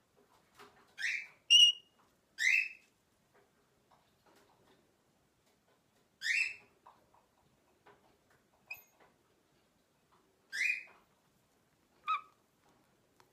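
Swainson's rainbow lorikeet giving short, sharp chirps, about six spaced through, the loudest about one and a half seconds in, with faint soft ticks between.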